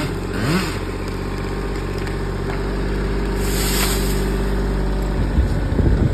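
Kubota L2501 compact tractor's three-cylinder diesel engine running steadily while it pulls a tree over by rope. About three and a half seconds in comes a crashing rustle as the tree's branches and leaves hit the ground. A few low thumps follow near the end.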